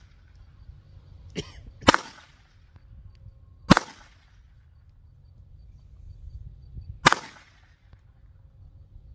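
Three single gunshots from a small-calibre firearm, one about two seconds in, one near four seconds and one near seven seconds, each a sharp crack with a short echo. A fainter click comes just before the first shot.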